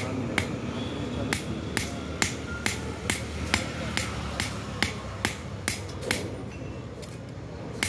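Hand hammer striking a steel sickle blade on a small anvil in a steady rhythm of about two sharp metal-on-metal blows a second.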